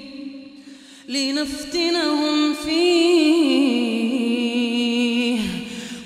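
After about a second's pause, a man's voice recites the Quran in slow melodic chant (tajweed). It is one long held phrase whose pitch sways and steps down, and it fades shortly before the end.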